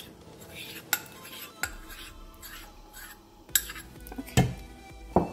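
A metal spoon clinking and scraping against a mug and mixing bowl, about five sharp, irregularly spaced clinks, the loudest a little past the middle, as melted chocolate is scraped out.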